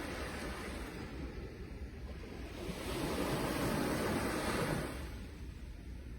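Ocean waves surging and washing on the shore, one wave swelling about three seconds in and falling away near the end.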